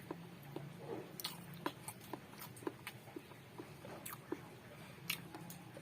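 Close-miked chewing of eggs: soft, irregular wet mouth clicks and smacks, a few each second.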